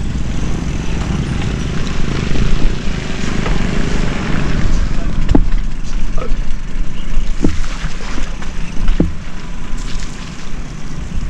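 Steady wind and road rumble on a moving action camera, with a few knocks and rattles about five, seven and nine seconds in.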